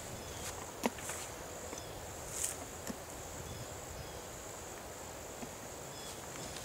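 Insects buzzing steadily in one high, even band, with a sharp click about a second in and a short jingle about two and a half seconds in from a horse's bridle buckles and bit being handled as it is unfastened.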